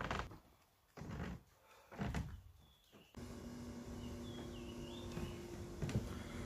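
Footsteps in flip-flops on wooden decking: four soft thuds about a second apart. Then a steady outdoor background with a low hum and a short, high warbling call about five seconds in.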